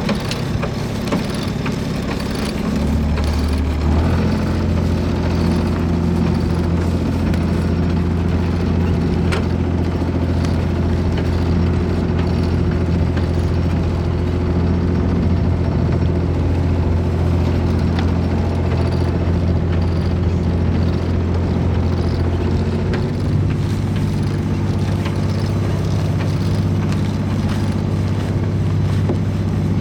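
A sailboat's engine running steadily under way, its speed picking up about four seconds in.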